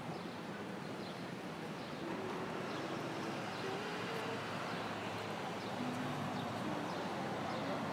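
City street ambience: the steady noise of passing traffic, growing a little louder about two seconds in.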